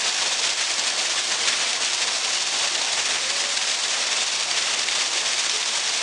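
Water falling from an outdoor waterfall and splashing into the pool below, a steady rushing splash.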